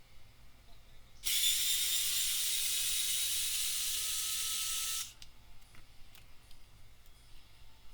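Small electric screwdriver running for about four seconds, a steady high whirr with a slight rise in pitch, then a few light clicks of small parts being handled.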